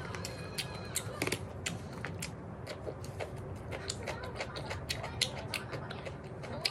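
Close-miked chewing of food, with many sharp, irregular wet mouth clicks over a faint steady low hum.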